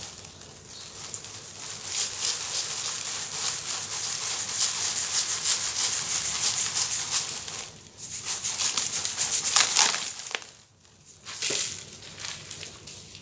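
Dry sand powder streaming down onto sand-cement blocks in a plastic bowl: a gritty, hissing patter of falling grains with fine crackles. It stops briefly about eight seconds in and again for about a second after ten seconds.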